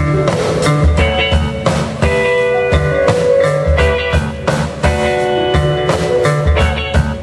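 Live rock band playing an instrumental passage: guitar chords over a steady drum beat and bass.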